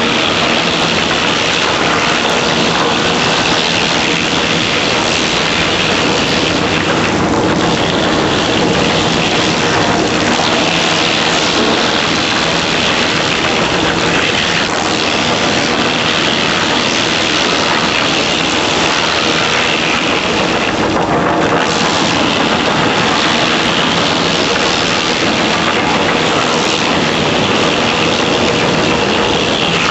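70-inch industrial wastewood chipper running, a loud, steady mechanical noise with an even engine drone underneath.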